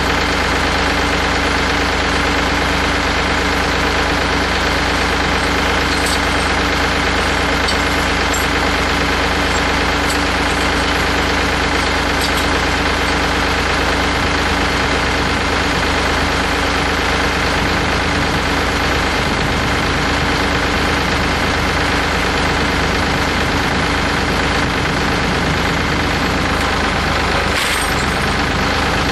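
Tractor engine running steadily at a constant speed, with a few faint clicks now and then.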